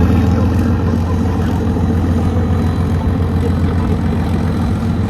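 A vehicle engine running steadily, a loud, even low hum.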